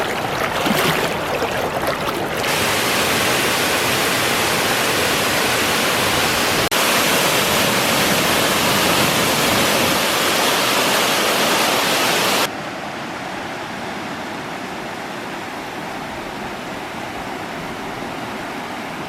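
Fantail Falls waterfall rushing: a loud, steady wash of falling water. It steps down abruptly to a quieter, duller rush about two-thirds of the way through.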